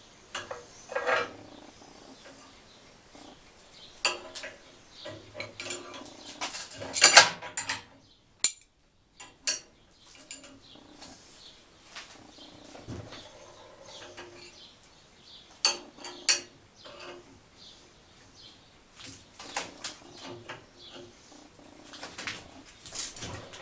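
Steel rods and a steel cone clinking, clanking and scraping against a steel worktable as the pieces are handled and positioned, in scattered sharp metallic knocks. The loudest run of clanks comes about seven seconds in.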